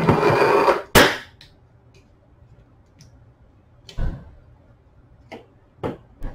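Sharp clicks and knocks of hard plastic and metal parts handled while a print head's ink-filling mounting jig is reassembled. One loud snap about a second in, then a few lighter clicks near the end.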